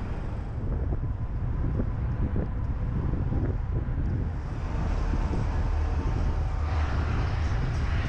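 Low rumble of a car driving in city traffic, with wind buffeting a camera microphone mounted on the car's outside. A brighter rushing hiss builds about five seconds in.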